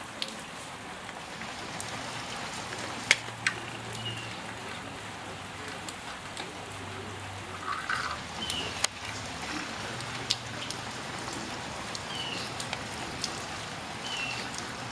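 Steady rain falling on a wet concrete driveway, with a few sharp taps, the loudest about three seconds in. A short high chirp repeats every few seconds, and there is a faint low hum on and off.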